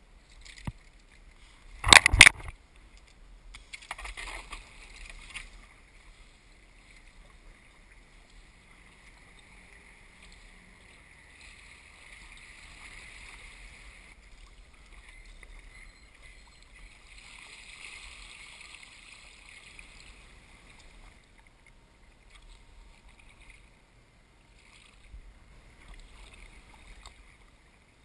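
Kayak paddling: the paddle blades dipping and pulling through the water in slow swells. A loud double knock comes about two seconds in.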